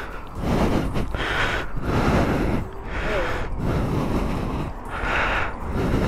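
A rider breathing in and out close to a helmet-mounted microphone, a breath about every second, over a steady low wind rumble from riding.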